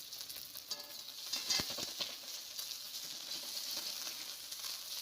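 Onion and green chillies sizzling and crackling steadily in hot oil in a pan, with nigella seeds and dried chilli. A sharp clatter about a second and a half in.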